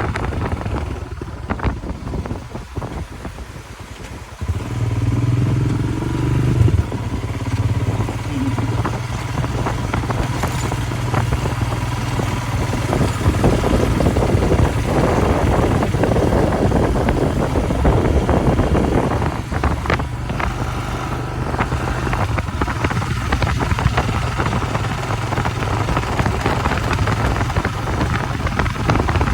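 Royal Enfield Himalayan motorcycle engine running steadily, becoming louder about four seconds in.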